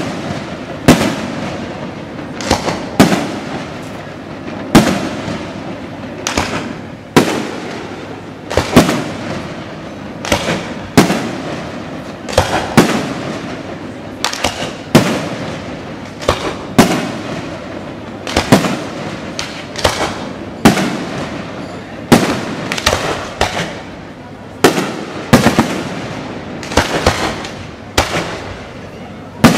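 Fireworks display: shells bursting with loud sharp bangs every second or two, each followed by a trailing rumble, with smaller pops in between.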